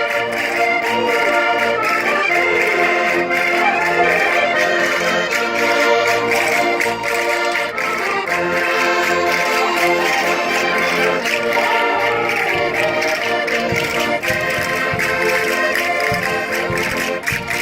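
Concertinas (diatonic button accordions) playing a lively Minho folk dance tune in full chords, without a break.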